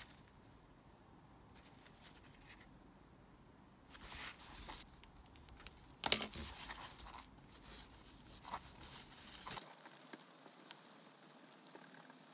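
Faint rustling and rubbing as gloved hands handle a tube of metal polish and work a microfibre cloth over a polished forged piston crown. It starts about four seconds in and is loudest about six seconds in.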